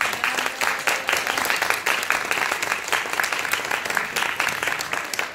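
Audience applauding: dense hand clapping that tails off near the end.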